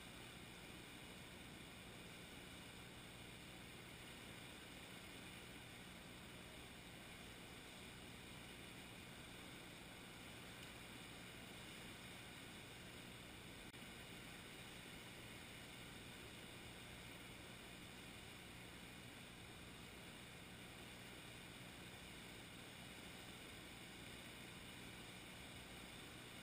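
Near silence: a faint, steady hiss with nothing standing out.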